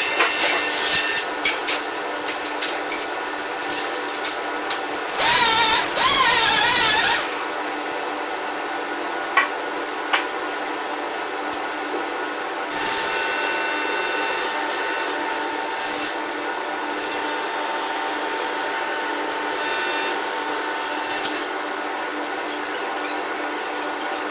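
Scragger-RS2 scragg sawmill running and sawing aspen logs. Scattered knocks come in the first few seconds, and a louder, wavering stretch of cutting comes about five to seven seconds in.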